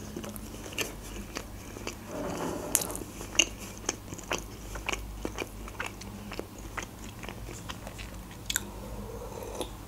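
A person chewing a mouthful of burger close to the microphone: soft wet mouth sounds with short clicks and smacks at irregular intervals.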